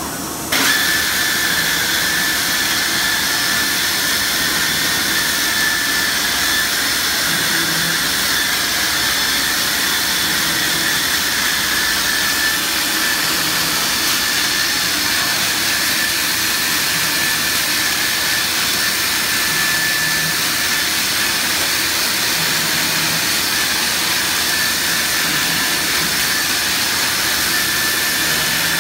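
Biesse Rover 15 CNC machining center running: a steady high whine over loud rushing noise that comes on sharply about half a second in and holds level throughout.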